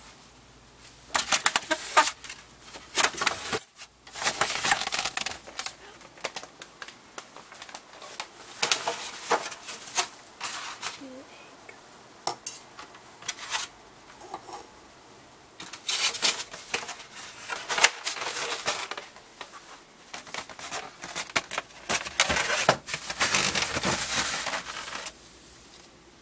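Kitchen dishes and cutlery being handled, clinking and knocking in several bursts of clatter with short pauses between.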